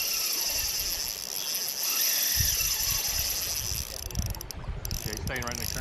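Spinning reel clicking as a hooked carp is played on the drag, over a steady high insect buzz. Wind rumbles on the microphone from about two seconds in.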